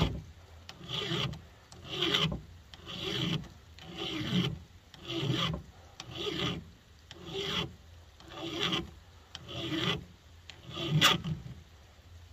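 A flat file rasping down the rakers (depth gauges) of a chainsaw chain in slow, even strokes, about one a second and around eleven in all. The rakers are being lowered because they were left far too high for the chain to cut.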